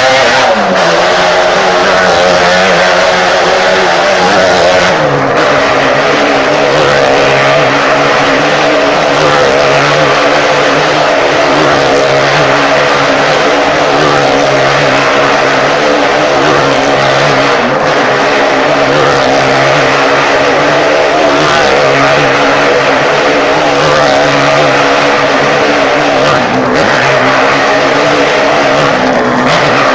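Motorcycle engine held at steady high revs while riding round the vertical wooden wall of a wall-of-death drum, loud throughout. Its pitch drops just after the start and again about five seconds in, then holds level.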